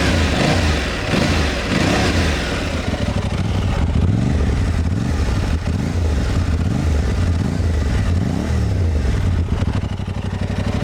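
Aprilia Tuareg 660's parallel-twin engine under way, its revs rising and falling again and again as the bike accelerates and eases off.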